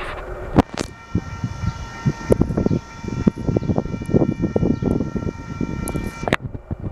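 Double-stack intermodal freight cars rolling slowly past with an uneven rumble and irregular clanks. From about a second in, a steady high tone of several pitches sounds together and cuts off sharply near the end.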